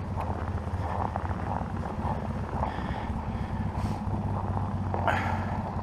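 A vehicle engine running steadily at a low, even idle, with wind on the microphone and a brief rustle about five seconds in.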